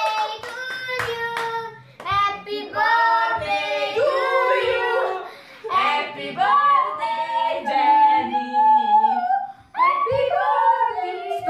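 A small family group singing together, a child's voice among them, with hand claps in the first second or so.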